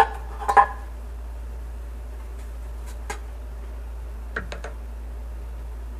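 Stainless-steel cake tin clinking and knocking on a stone countertop while it is handled and greased with a brush. There are two sharp clinks in the first second, then a few light taps about four and a half seconds in, over a steady low hum.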